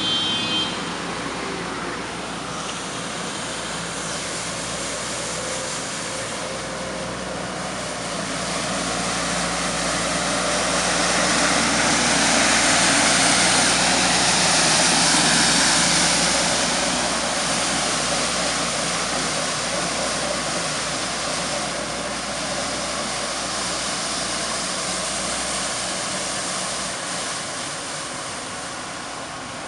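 Heavy road-works vehicle running with a steady mechanical noise. It grows louder over several seconds, peaks near the middle, then slowly fades.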